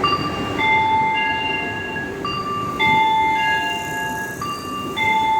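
A bell-like chime tune of a few held notes, repeating about every two seconds, from a railway station's public-address system, over the steady low rumble of a train moving along the platform.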